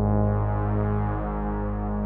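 MFB synthesizer playing sustained low drone-like notes, with a shift in the bass notes about a second in and no drum hits.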